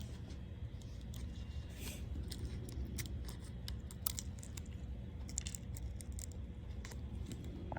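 Faint, scattered small clicks and light plastic handling noises from working on an opened laptop's internals, over a steady low hum.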